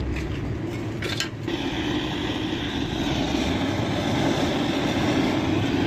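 A steady rushing hiss from a hose jet driven into the filler neck of a Suzuki Mehran radiator to flush it. The jet starts about a second and a half in, after a few short clicks.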